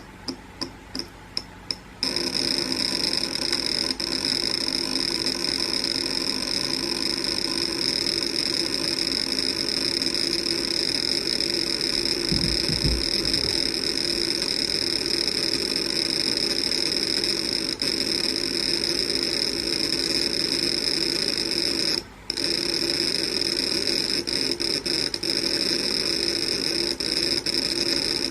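Failed WD Red 6 TB (WD60EFRX) NAS hard drive powered up and trying unsuccessfully to initialize. It ticks about three times a second for the first two seconds, then gives a steady high-pitched whine over a lower hum, which breaks off for a moment about 22 seconds in. There is a low thump about halfway through.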